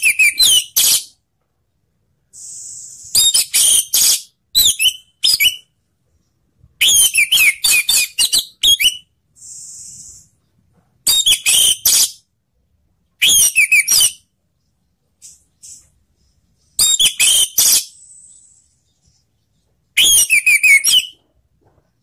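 Orange-headed thrush singing: about nine loud, fast, high whistled song phrases, each a half to two seconds long, with pauses between them, and a few faint, thin, high notes in the gaps.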